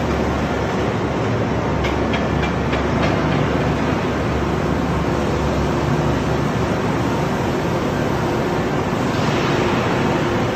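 Steady industrial machinery noise of a steel billet induction heating line, a constant hum and rumble with a few light clicks about two to three seconds in.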